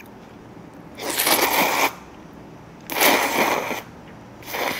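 Jjajangmyeon noodles being slurped: three slurps, the first two about a second each and a shorter one near the end.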